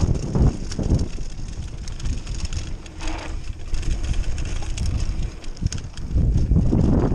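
Downhill mountain bike riding a rough trail: wind buffeting the microphone over a steady rattle and knocking of the bike, louder at the start and again near the end.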